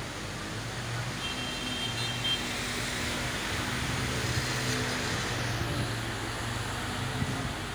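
Motor vehicles driving through a flooded street: a low steady engine hum over a constant wash of tyre and water noise, with a brief high-pitched tone about a second in.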